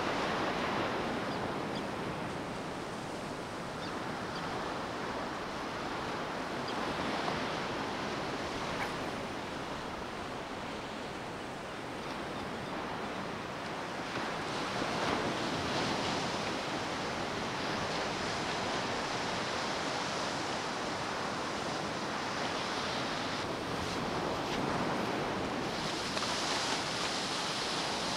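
Ocean surf breaking on a beach, a steady wash of waves that swells and eases every several seconds.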